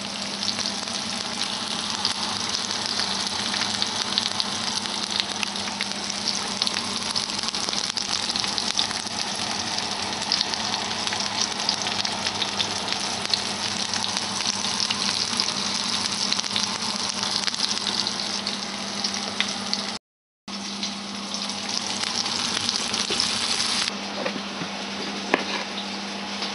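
Onion and tomato pieces sizzling and crackling in hot oil in a frying pan, a steady dense sizzle that breaks off for a moment about two-thirds of the way through. Near the end a couple of knife knocks on a wooden chopping board.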